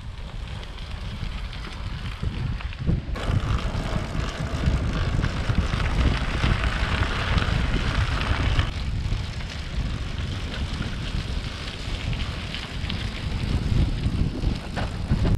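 Loaded touring bicycle rolling along a gravel track: tyre noise on the gravel with fine ticks, and wind rumbling on the microphone. The tyre noise turns louder and brighter at about 3 s and drops back at about 9 s.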